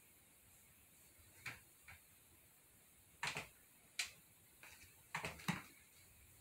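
Scattered faint, sharp clicks and small taps, about seven at uneven intervals, the clearest two about halfway through.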